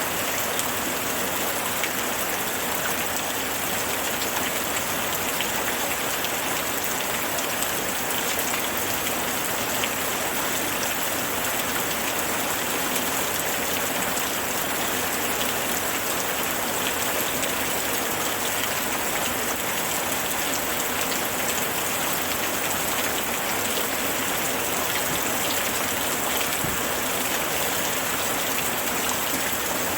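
Steady rainfall: a dense, even hiss of rain with countless fine drop patters on a surface.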